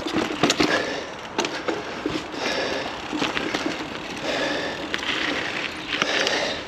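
Mountain bike being ridden over a dirt trail, picked up by a chest-mounted camera: rolling tyre noise with the chain and frame rattling and sharp knocks over bumps, swelling and easing about every two seconds.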